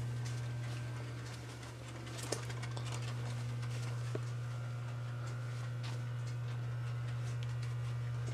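Steady low hum with scattered faint clicks and taps, one sharper click a little over two seconds in.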